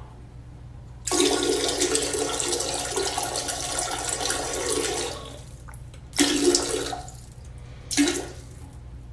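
Cane corso urinating into a toilet bowl: a steady stream splashing into the water for about four seconds, then a couple of shorter spurts.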